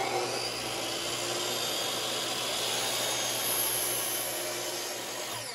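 Miter saw with a fine-tooth finish blade running and slowly cutting a 45-degree miter through a wood strip. Near the end the motor is let go and the blade starts to wind down in a falling whine.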